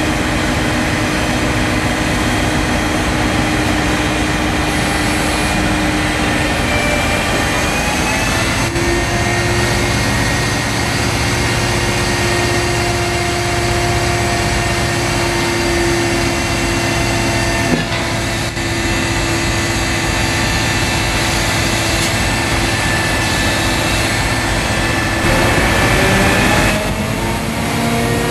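Liebherr LTM 1070-4.2 mobile crane's diesel engine running steadily with a whining tone over it. The pitch rises about a third of the way in and again near the end.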